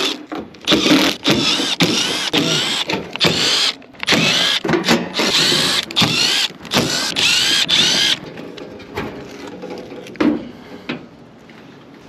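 Cordless drill driving out sheet-metal screws from the top panel of a rooftop AC unit. It runs in about a dozen short spins, each rising in pitch as the motor speeds up. The drill stops about eight seconds in, followed by a few faint clicks and a knock as the panel is handled.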